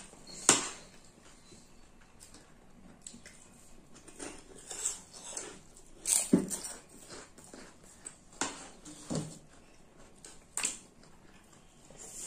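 Close-up eating sounds: chewing and wet mouth smacks, with scattered sharp clicks, the loudest about half a second and six seconds in.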